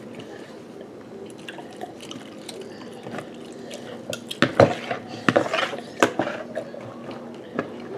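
Spoons clinking and knocking against bowls of cereal and milk, with a few sharp clicks in the second half.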